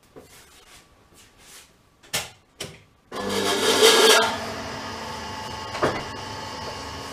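Two sharp clicks, then an old metal lathe's motor is switched on about three seconds in. It is loudest for the first second as it comes up to speed, then runs steadily with a hum and a whine.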